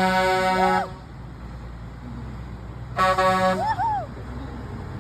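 Truck air horn sounding: a long steady blast that cuts off just under a second in, then a second short blast about three seconds in, with road traffic noise between.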